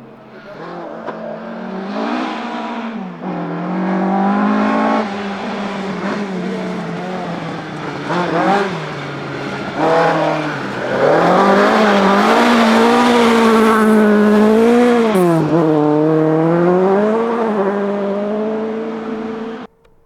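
Ford Escort Mk2 rally car engine driven hard, its revs repeatedly rising and falling through gear changes. It gets louder from about halfway and cuts off suddenly just before the end.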